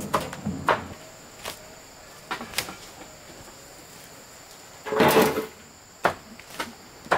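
A few scattered short knocks and clicks, like wood or household objects being handled, with a louder clatter about five seconds in.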